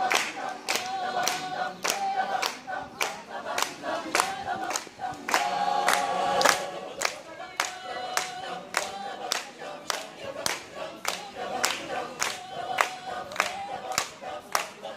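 Mixed choir singing with the audience clapping along in time, a steady beat of about three claps a second.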